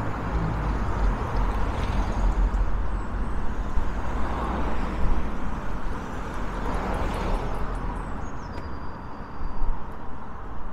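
Street ambience: vehicles passing on the road, rising and fading a few times, with wind rumbling on the microphone.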